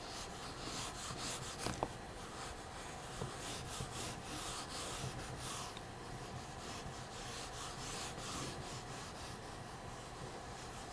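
A dark drawing stick dragged on its side across drawing paper in long sweeping strokes, a soft dry scraping that swells and fades with each stroke, one after another. A couple of small clicks come a little under two seconds in.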